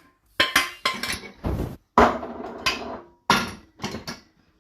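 Dishes and cutlery clattering together: a quick series of sharp clinks and knocks, about eight in all, some with a short metallic ring after them.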